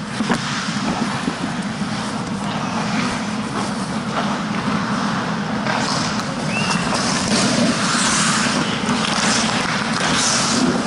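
Ice hockey skating in a rink: skate blades scraping and carving on the ice over a steady low hum. The scraping gets stronger from about six seconds in as the skaters come close.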